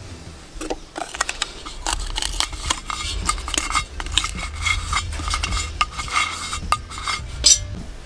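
A hand pressing and smoothing tape over the drain hole inside a terracotta clay pot: a run of knocks and scrapes against the clay.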